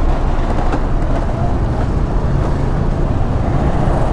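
Motorcycle on the move at speed: steady wind rush buffeting the rider's microphone, with the engine running underneath.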